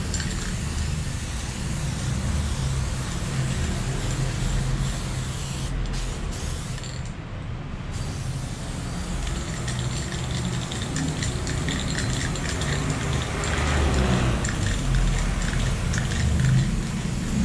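Aerosol spray paint can spraying onto a wall: a steady hiss over a low rumble.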